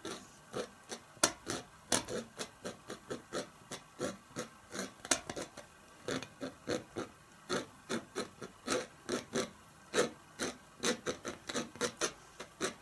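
Steel palette knife scratching through wet oil paint on a canvas in short, quick strokes, about three a second, scraping back the top layer to expose the red underpainting beneath.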